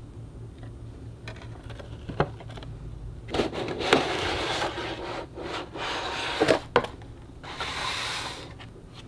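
Cardboard packaging being handled: card flaps unfolded and boxes slid against each other, rubbing and scraping in three bursts, with a few sharp taps of card against card.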